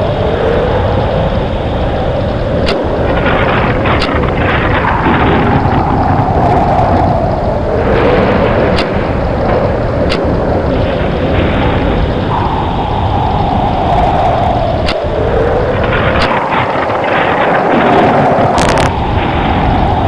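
Tornado sound effect: loud, continuous wind rushing, with a howl that falls in pitch and swells again about every four seconds. There are a few faint clicks.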